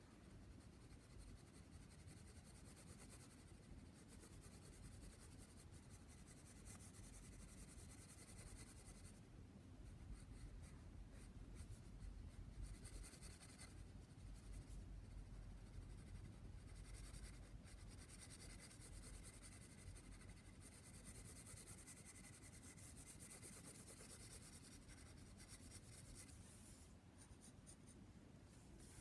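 Faint scratching of a pencil on paper, in runs of short back-and-forth shading strokes.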